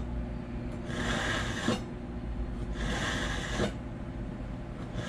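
A kitchen knife being drawn through a small handheld knife sharpener: slow scraping strokes, each just under a second long, about one every two seconds.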